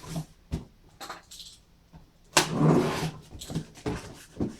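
A cardboard box being opened and handled: a few light knocks and rustles, a louder scraping rustle about two and a half seconds in, then more short knocks.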